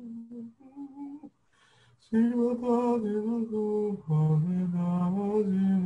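A man singing a slow, wordless chant. Quiet hummed notes come first, then a short pause, and about two seconds in come loud, long-held notes that move slowly up and down in pitch.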